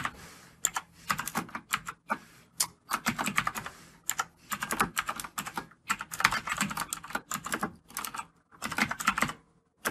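Typing on a computer keyboard: runs of quick keystrokes in bursts, with short pauses between.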